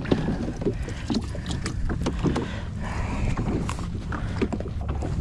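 Sea-Doo Fish Pro personal watercraft's engine idling low and steady, with scattered knocks and splashes of water against the hull.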